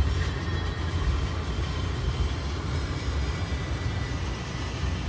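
Car driving on a highway, heard from inside the cabin: a steady low rumble of road and engine noise.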